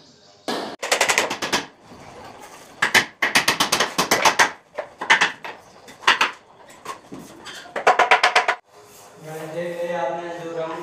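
Bursts of quick rattling, scraping strokes, about seven of them over the first eight seconds, as plywood bed panels are worked and handled by hand.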